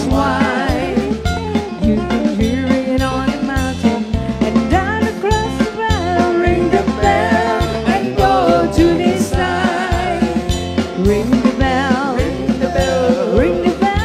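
Live band music: singing with fiddle, electric bass guitar and drum kit over a steady beat.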